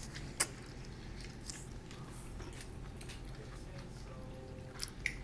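Close-up eating sounds: chewing and slurping of black bean noodles, with a few sharp clicks, the loudest about half a second in and a cluster near the end.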